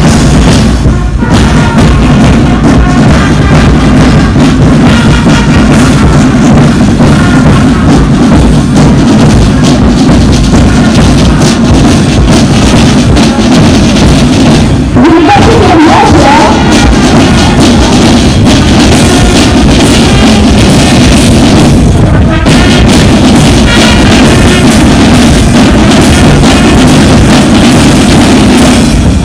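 Loud music with drums.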